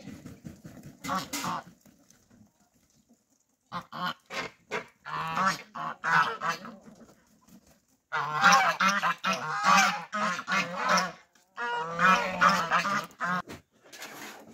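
A flock of domestic geese honking, harsh repeated calls in several bouts that grow louder and denser in the second half.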